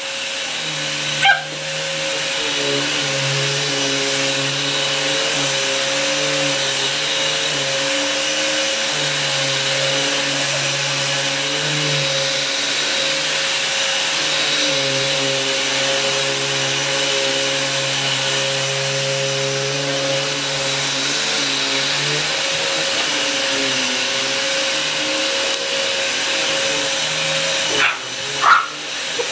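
Vacuum cleaner running steadily, its pitch shifting a little as it is worked, growing louder about two seconds in. A dog gives a short bark about a second in and again near the end.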